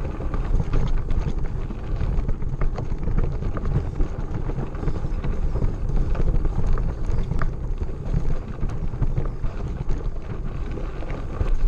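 Wind buffeting the microphone of a camera riding on a mountain bike, a steady low rumble with scattered small clicks and rattles from the bike on a rough track.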